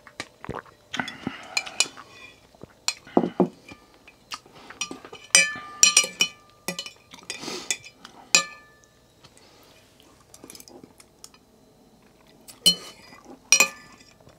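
Metal spoon and fork clinking and scraping against a white porcelain soup bowl. A quick run of ringing clinks comes in the middle and two louder ones near the end, after slurping from the bowl at the start.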